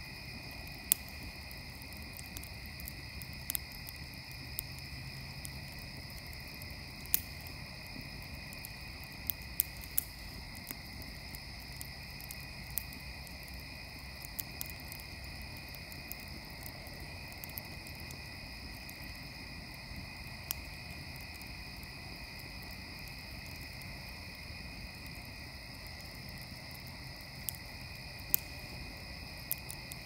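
Wood fire crackling, with sharp pops every few seconds, over a steady high-pitched night chorus of tree frogs.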